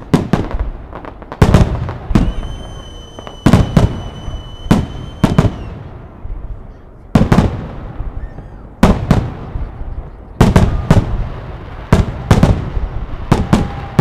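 Fireworks display: aerial shells going off one after another in quick clusters of sharp bangs, each followed by a rumbling echo. A steady high whistle sounds for about three seconds near the start.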